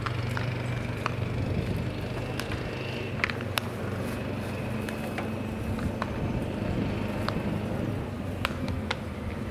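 Small engine of a ride-on infield groomer running steadily, dragging the dirt infield, heard as a low hum. Scattered sharp clicks and knocks sound over it.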